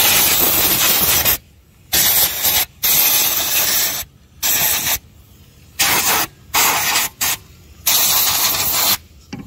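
Compressed-air blow gun hissing in about eight short blasts, stopping and starting, as it blows dust and grit out of a car's rear brake caliper.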